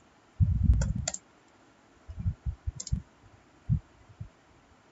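Computer keyboard being typed on, with short, dull keystrokes. A quick cluster of keystrokes comes about half a second in, then a few scattered single taps.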